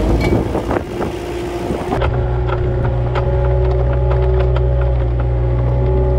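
A steady, loud low machine drone with scattered clicks and knocks over it; the sound changes abruptly about two seconds in, as at a cut.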